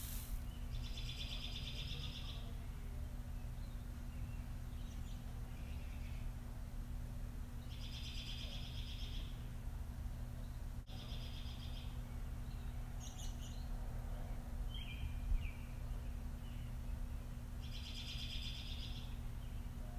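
A bird's rapid trill, repeated four times, each a second or so long, with a few shorter chirps between. A steady low hum runs underneath.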